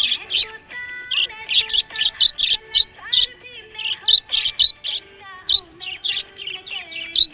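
Budgerigars chirping in quick, repeated short calls, several a second, over background music with held melodic notes.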